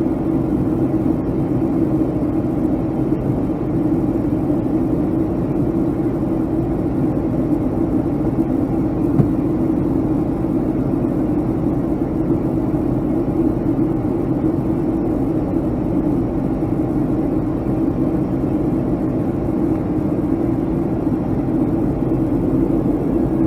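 Steady drone of engines and rushing air inside the cabin of a Boeing 757-200 in the climb, with its strongest part low in pitch.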